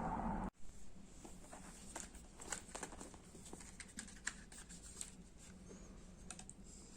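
A steady rushing noise cuts off abruptly about half a second in. It is followed by scattered light clicks and taps, like small plastic parts and packaging being handled.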